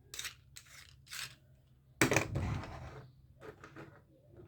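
Handling noises: short rustles and scrapes, with a louder crinkle about two seconds in that fades over about a second, then a few faint clicks.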